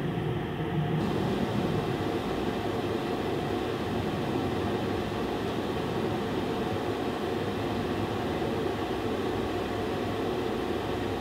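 Steady room noise: an even hiss with a faint low hum and no distinct events. The hiss turns brighter about a second in.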